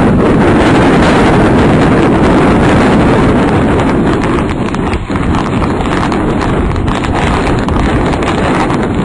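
Strong tornado winds buffeting the microphone: a loud, continuous rumbling roar with rapid, irregular thumping, dipping briefly about halfway through.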